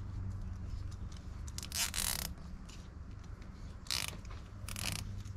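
Three short rasping scrapes as plastic intake parts are worked by hand in a car's engine bay, the first about half a second long and the other two shorter, near the end. A steady low hum runs underneath.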